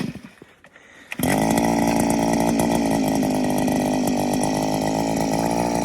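A power ice auger's motor starts suddenly about a second in and runs steadily at high speed.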